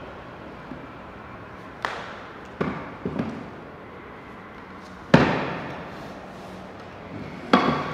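A small wooden cabinet knocking and thudding on a stone floor in a large echoing hall: a few separate knocks, the loudest about five seconds in with a long ringing tail, and another near the end.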